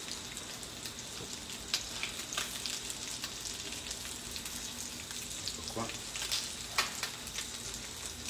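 Sardines sizzling in a hot frying pan, a steady hiss, with a metal utensil clicking and scraping against the pan a few times as the fish are lifted out.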